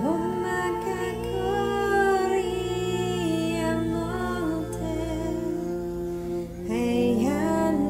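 Meditation music: wordless light-language vocals hummed and sung in long held notes over a steady drone. The voice glides up into its notes at the start, and a new sung phrase enters about a second before the end.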